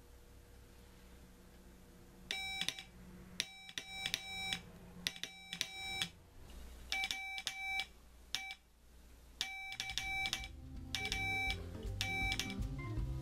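Morse code sidetone from a small speaker wired to a homebuilt Arduino Morse decoder board, keyed by hand on a straight key. A buzzy beep sounds in short dits and longer dahs, starting about two seconds in.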